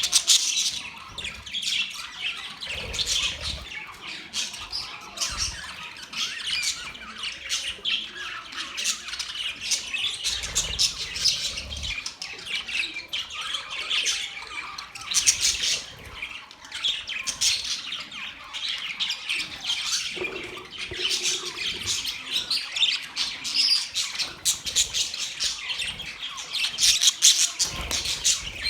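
Many small birds chirping and squawking at once in a dense, unbroken chorus of short, overlapping calls.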